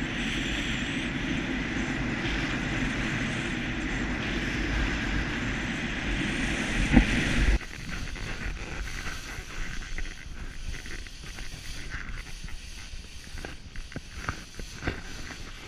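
Wind rushing over a helmet camera's microphone during a speedriding flight, a steady loud rush. About halfway through it drops abruptly to a quieter hiss with scattered scrapes and clicks as the skis run on the snow.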